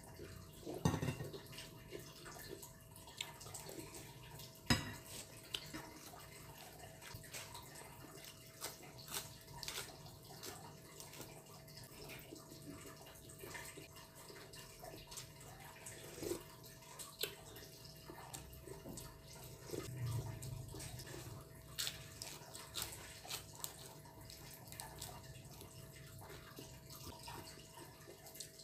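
Faint eating sounds: a metal spoon clinking and scraping in a glass bowl of soup, with small slurps of broth between scattered clicks. A faint steady hum runs underneath.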